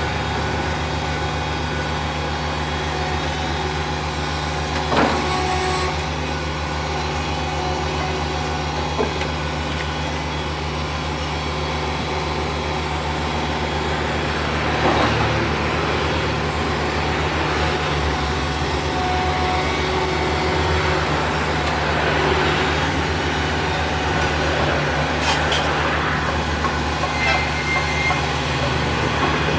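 Caterpillar excavator's diesel engine running steadily as the machine works its boom and bucket. A few short knocks stand out over the drone.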